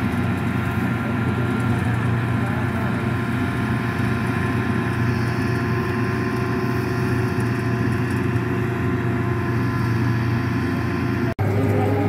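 Laveda M132 combine harvester's engine running steadily as it cuts a crop, an even drone with a strong low hum. Near the end the sound cuts out for an instant and comes back with a lower hum.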